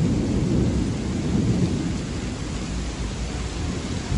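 Heavy rain with strong wind, the wind buffeting the microphone as an uneven low rumble over the hiss of the downpour, easing slightly.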